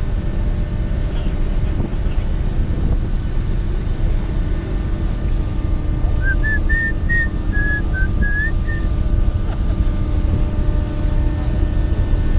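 A ferry's engines running with a steady hum under heavy wind buffeting the microphone in a storm. About six seconds in, a short whistle of several wavering notes sounds over it for about three seconds.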